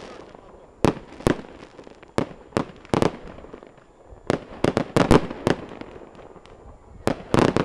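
Fireworks display bursting: a string of sharp bangs and pops in irregular clusters, a handful in quick succession every second or two.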